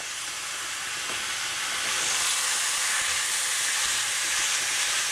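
Minced beef sizzling in a hot frying pan as it browns: a steady hiss that grows louder about two seconds in.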